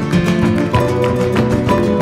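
Background music: quick plucked acoustic guitar in a flamenco style.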